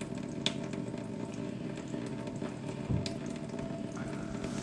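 Steady kitchen hum and hiss, with a light click about half a second in and a soft knock about three seconds in.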